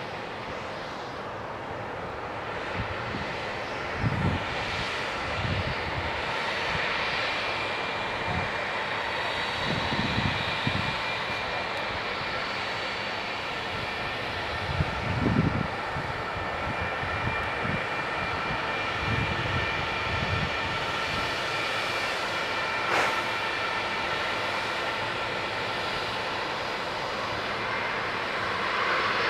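Airliner jet engines running, a steady whine over a rushing rumble that slowly grows louder. A few short low thumps come and go over it.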